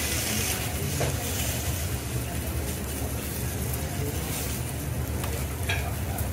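Food sizzling on a teppanyaki iron griddle with an uneven hiss, over a steady low hum, with a couple of light clicks.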